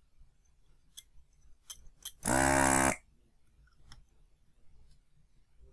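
Desoldering gun's vacuum pump running in one short buzz of about half a second as it sucks solder off a resistor's joint, with a few light clicks of the tool against the board before and after.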